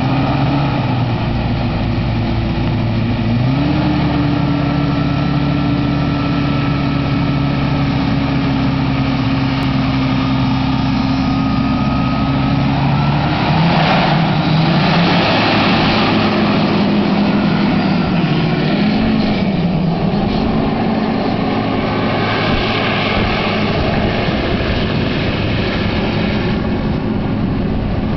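Hand-made hovercraft's engine and ducted fan running steadily, stepping up in pitch after a few seconds and again about halfway through as it takes off from the shore onto the water. Later the pitch wavers briefly.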